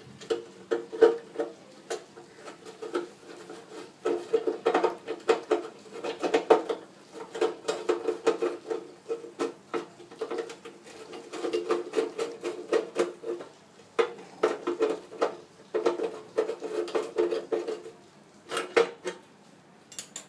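A screwdriver turning screws out of a gas stove's burner mount, giving quick metal clicks and a squeaky rasp. The sound comes in repeated bursts of a second or two, with short pauses between.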